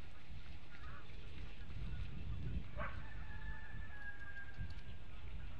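Outdoor ambience from the nest camera's microphone: a steady low rumble, with a long distant honk-like call about three seconds in that is held flat for about two seconds.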